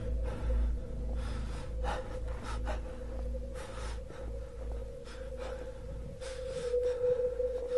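A steady humming drone, the kind reported as a mysterious sound from the sky, swelling louder near the end. Short bursts of rushing noise and a low rumble come and go over it.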